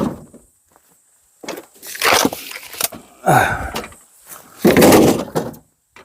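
Firewood logs being handled: a series of heavy wooden thuds and clacks, about five in six seconds, with one sharp click in between.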